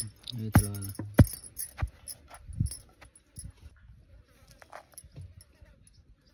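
Wooden pestle pounding roasted peanuts and red chillies in a stone mortar, about five dull thuds roughly every half second, then the pounding stops after about two and a half seconds and only light taps follow. Insects chirr steadily in the background.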